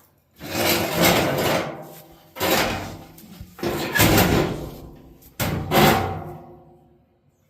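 Four loud knocks or bangs on the dryer's sheet-metal cabinet and parts as it is taken apart, each one trailing off over about a second.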